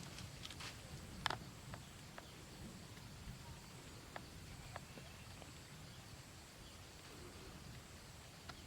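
Faint footsteps and crackling on a dry forest floor, with one sharper twig-like crack about a second in and sparser ticks after.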